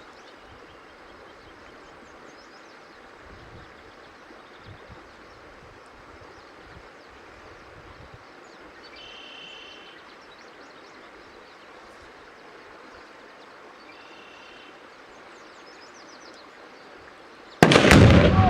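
Two pounds of Tannerite, mixed in a plastic sports-drink bottle, detonating when struck by a rifle bullet: one sudden, very loud boom near the end. Before it there is only a low outdoor background with a few faint high chirps.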